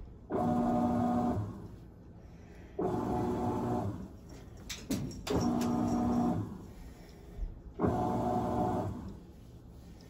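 Midea top-load washing machine's motor turning the drum in short pulses to sense the weight of the load: four pulses of steady motor whine, each about a second long with about a second and a half of pause between.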